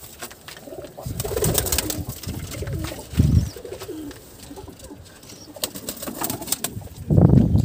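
Domestic pigeons cooing in a loft, with bursts of sharp wing-flap clicks. Dull low thumps come about three seconds in and, loudest, near the end.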